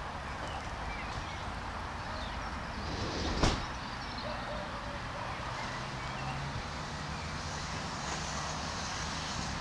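Steady low rumble of road traffic and engines. One sharp knock about three and a half seconds in.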